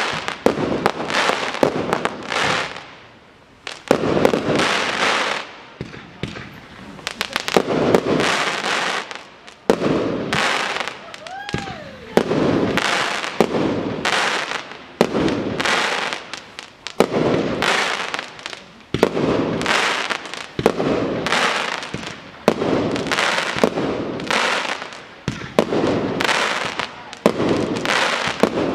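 Aerial fireworks display: shells and comets bursting one after another, often about one a second, with brief lulls between volleys.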